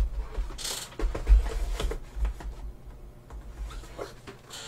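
Cardboard Pepero snack boxes being handled and stacked on a desk: dull thumps as boxes are set down, with cardboard scraping and rustling, mostly in the first two seconds.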